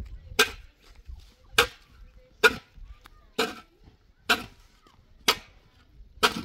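Hand tool striking hard and regularly, seven blows about a second apart, breaking up an old mud-and-straw (kahgel) roof layer that has been soaked by leaking water.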